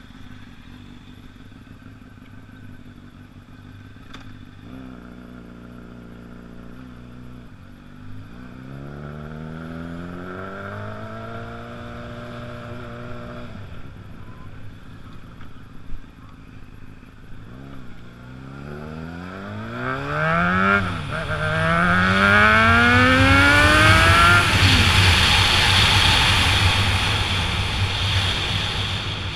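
Honda CBR600RR's inline-four engine idling, then pulling away. The revs climb from about eight seconds in, drop back at a gear change, and climb through two more steep rising pulls in the second half. Loud wind rushes over the helmet microphone as speed builds near the end.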